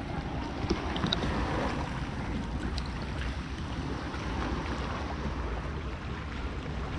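Wind buffeting the microphone as a steady low rumble, over small waves lapping in shallow sea water. A few faint ticks come about a second in.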